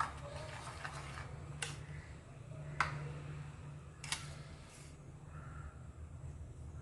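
About three light, sharp clicks of a spoon against a dish as sauce is spread over a tilapia for marinating, over a steady low hum.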